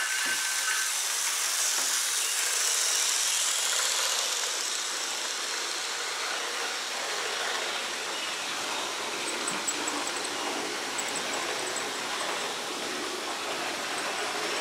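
HO scale model train running on its track: a steady, even whir with no clear beat.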